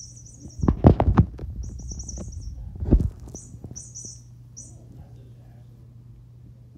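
Toy mouse giving off short bursts of high electronic chirping, set off as the cat bats it, mixed with several loud thumps about a second in and again near three seconds in.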